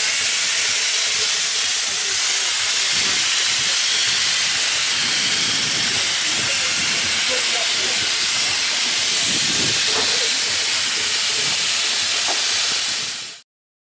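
Steady hiss of steam escaping from a steam traction engine standing in steam, loud and unchanging, cutting off suddenly near the end.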